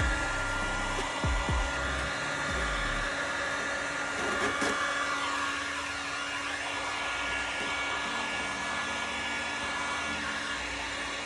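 Electric heat gun running steadily, warming a vinyl decal on a car hood: a steady hiss of blown air with a thin whine over it. A few low thumps in the first three seconds.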